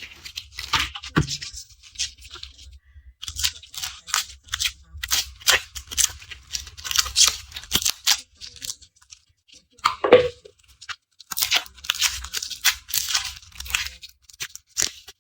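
Dry, papery garlic skins crackling and tearing as cloves are peeled by hand: crisp rustling in clusters broken by short pauses.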